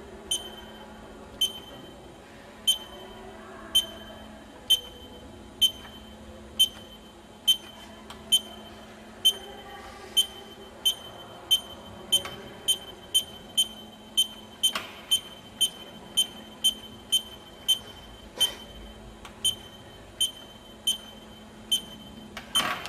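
Haas CNC control keypad beeping: short, identical high beeps, one for each press of Cycle Start as the graphics simulation is stepped through one block at a time in single-block mode. The beeps come about once a second at first and quicken to about two a second, over a faint steady hum.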